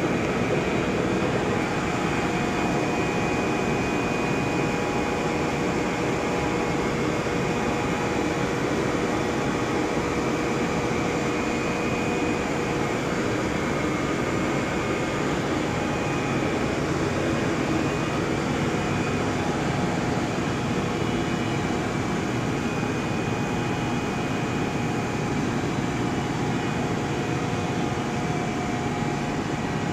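Steady drone of HDPE plastic-film machinery running: a blown-film extrusion line and a film printing press, with a few steady hum tones over an even mechanical noise.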